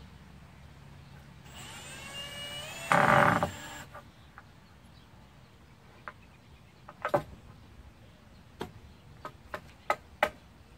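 Handheld power drill spinning up with a rising whine for about two seconds, then a short loud burst as it drives a screw into the wooden step railing. Several sharp clicks and knocks follow.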